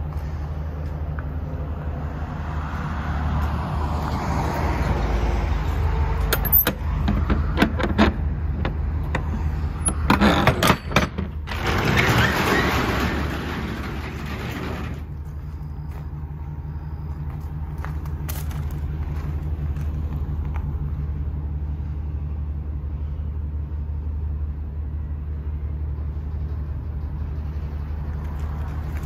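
The truck's gas V8 idling steadily. Clicks and clanks come from about six to eleven seconds in, then a few seconds of loud rattling rush as the box's roll-up rear door is unlatched and rolled open.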